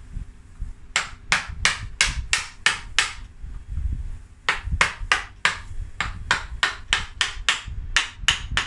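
Hammer striking a chisel to carve broken wood out of an elm trunk, sharp blows at about three a second: a run of about seven, a short pause, then a longer run.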